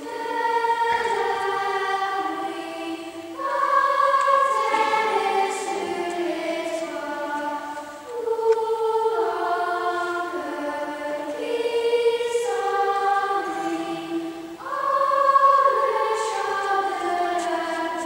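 A girls' choir singing a slow melody in phrases that swell and fade every few seconds.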